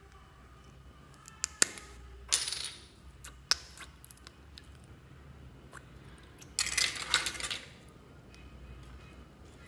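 Small plastic slime jar being opened by hand: a few sharp plastic clicks and snaps from the lid, then about a second of squelching as sticky clear slime is pulled out of the jar.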